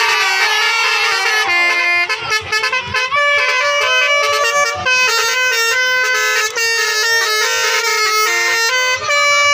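A bus's 'telolet basuri' multi-tone air horn playing a loud melody, its steady notes stepping from pitch to pitch every fraction of a second.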